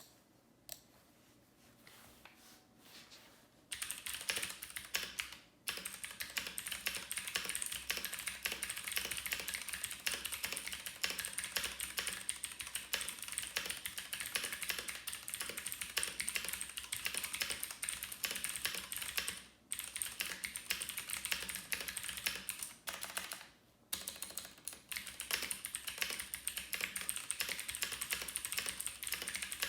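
Keyboard typing: a quiet start, then a few seconds in a continuous run of rapid key clicks, broken by a couple of brief pauses.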